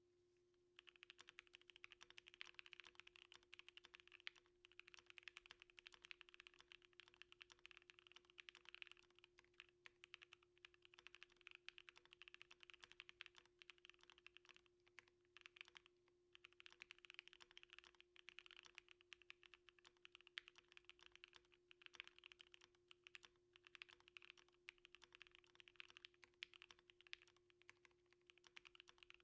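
Typing on a Navy 7V mechanical keyboard with SP-Star Polaris Grey switches, an FR4 plate and GMK Kuro Shiro keycaps: fast, continuous keystroke clacks starting about a second in, with short pauses every few seconds. A faint steady hum runs underneath.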